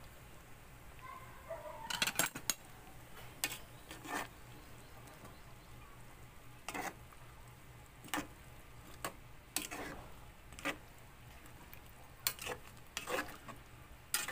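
A spatula stirring mung bean stew with vegetables in a metal pot, clinking and knocking against the pot about a dozen times at irregular intervals, with scraping between the knocks.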